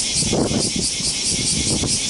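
Cicadas buzzing steadily in a shrill chorus that pulses several times a second, with low rumbling and rustling underneath.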